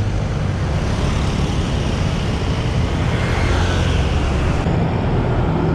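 Road traffic: vehicle engines running with a steady low rumble under the hiss of tyres on the road.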